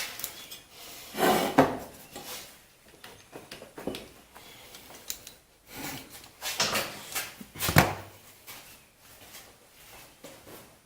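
Hand wrench and socket working the cylinder head bolts of a Briggs & Stratton L-head engine: irregular metal clanks, clicks and scrapes, loudest about a second and a half in and again near eight seconds in. The bolts are over-tightened and are being forced loose.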